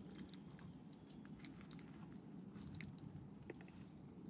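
Near silence, with faint, scattered little clicks and crackles over a low background hush.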